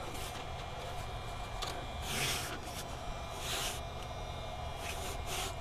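Hands rubbing and pressing a step tread cover down onto a metal RV step, a few soft brushing swishes over a low steady background.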